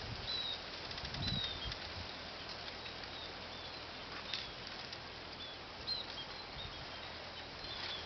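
Munias calling: a handful of short, thin, high chirps scattered irregularly over a steady background hiss.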